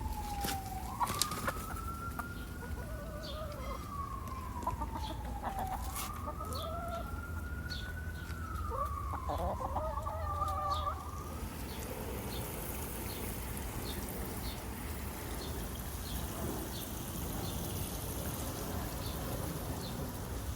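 A siren wailing, sliding slowly down and up in pitch in long sweeps and fading out about eleven seconds in, while backyard hens cluck.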